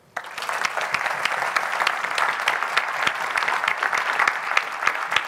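Audience applauding: many hands clapping, starting suddenly just after the start and holding steady.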